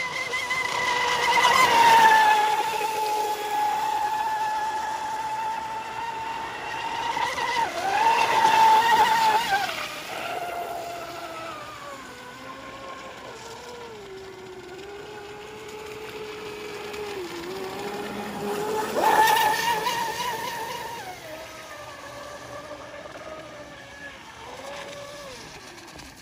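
Traxxas M41 RC speedboat's brushless motor (Rocket 4092 1450Kv on 6-cell LiPo) whining at speed, its pitch dipping and rising with the throttle, with the hiss of spray from the hull. It gets louder three times as the boat passes close: about two seconds in, around eight seconds, and again near twenty seconds.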